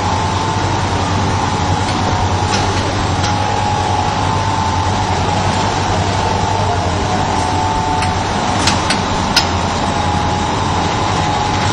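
Candy-bar forming and packaging line running: conveyor belts and machinery giving a steady mechanical noise with a constant hum. Two sharp clicks come about nine seconds in.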